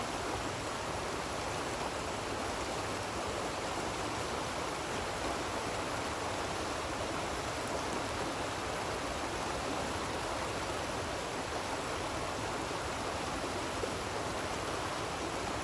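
Shallow salmon creek rushing steadily over rocks, a continuous even wash of water.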